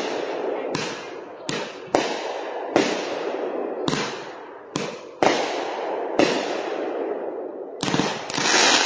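Consumer-grade aerial fireworks going off: about ten sharp reports, roughly one a second, each trailing off in a rumbling echo. Near the end comes a denser, hissing crackle.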